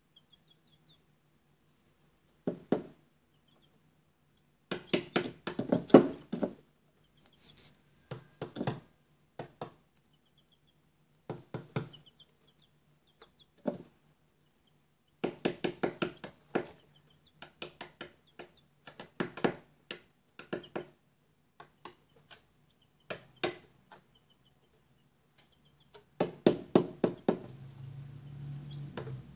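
Young chicks in a cardboard brooder box: bursts of rapid tapping and knocking, with faint short high cheeps between the bursts.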